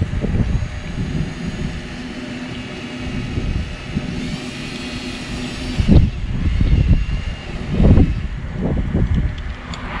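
Gusty wind buffeting the microphone, with a steady engine hum underneath that cuts out about six seconds in; stronger gusts come near the end.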